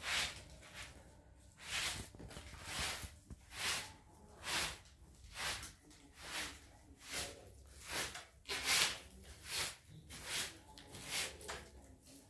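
Short-handled straw broom sweeping a carpet in steady, even strokes, a little more than one swish a second.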